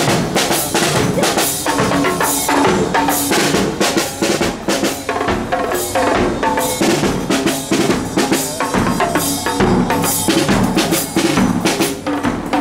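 Marching snare drum and bass drum playing a steady parade beat, with a pitched melody running over the drumming.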